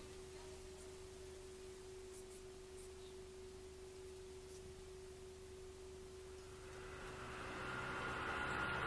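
A faint, steady single tone with a low hum beneath it; from about two-thirds of the way in, a hissy sound with a higher tone slowly swells up.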